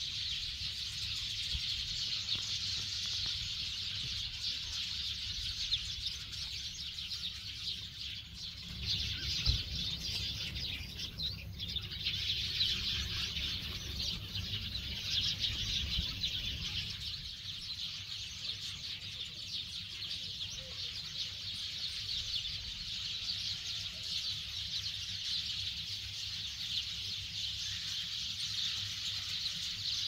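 Birds chirping in the trees: a dense, continuous high chorus. A low rumble runs under it for a stretch in the middle.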